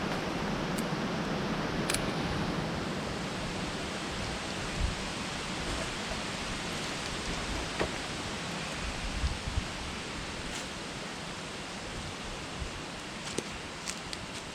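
Strong wind blowing: a steady rushing hiss, with gusts buffeting the microphone in low rumbles and a few faint scattered clicks.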